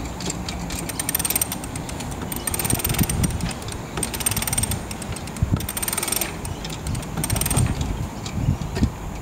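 Ratcheting clicks in short repeated bursts, about every second and a half, from the hoisting gear as a tabernacle-mounted mast on a Norwalk Islands Sharpie is hauled upright.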